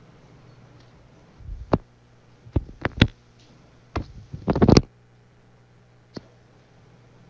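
Handling noise at a desk close to the microphone: about eight sharp knocks and clicks, some in quick pairs, bunched in the middle with the loudest near the middle, then one faint click, over a low steady hum.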